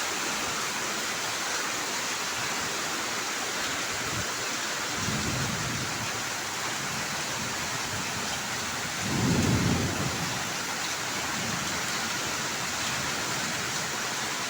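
Hailstorm: heavy hail and rain coming down in a steady hiss, with two low rumbles rising out of it about five and nine seconds in.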